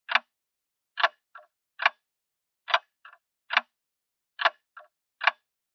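Grandfather clock ticking steadily, its escapement giving a sharp tick a little under once a second, with a fainter second click after every other tick, so the beat falls into a repeating tick-tock pattern.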